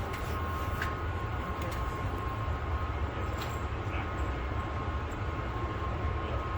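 Steady low rumble with a faint, steady high whine over it, broken by a few faint ticks.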